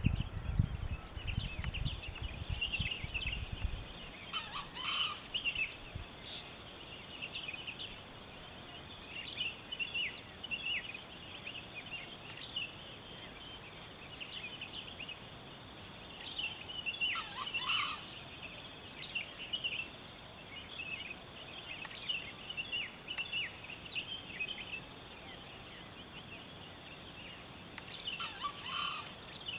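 Junglefowl rooster crowing three times, each a short call, roughly twelve seconds apart, over steady high-pitched chirping. A low rumble runs through the first few seconds.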